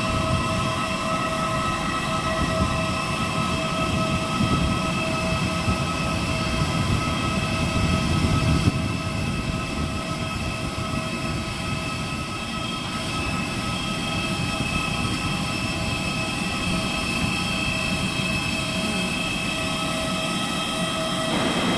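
Parked Airbus A320 airliner running with a steady whine: several steady high tones over a low rumble.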